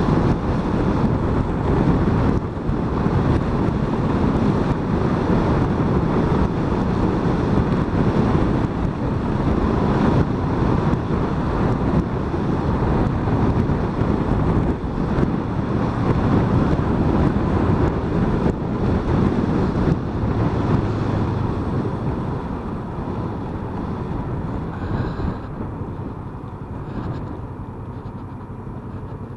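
Riding wind rush on the microphone mixed with the running engine of a Kawasaki Vulcan S motorcycle, a 649 cc parallel twin, heard from the rider's position. The noise eases off over the last several seconds.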